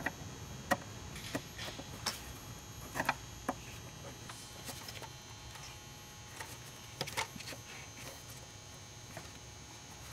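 Scattered light clicks and taps of plastic as gloved hands pry open the factory tube's quick-connect clip, which is already broken, to work it off the intake elbow. The clicks come in a cluster over the first few seconds and again about seven seconds in, over a faint steady hum.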